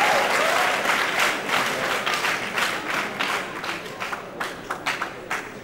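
Student audience applauding, dense at first and thinning to scattered claps toward the end.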